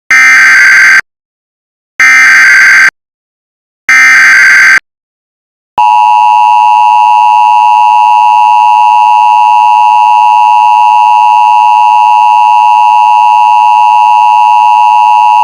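Emergency Alert System alert opening: three one-second bursts of SAME digital header data, a second apart, then the steady EAS two-tone attention signal held for about ten seconds before cutting off.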